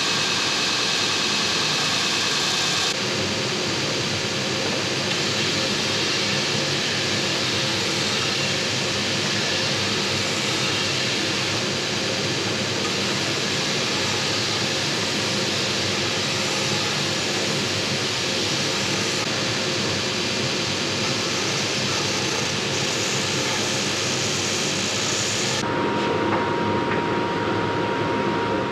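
Belt sander running steadily while it grinds the hub end of a wooden wagon-wheel spoke, shaping the spoke to fit the hub. The sound changes abruptly about three seconds in and again near the end, where a steady whistling tone joins the noise.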